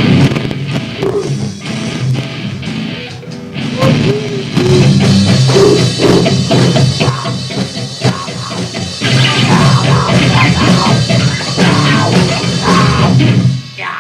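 Lo-fi noise-rock band playing loud, distorted guitar over drums, cutting off abruptly near the end.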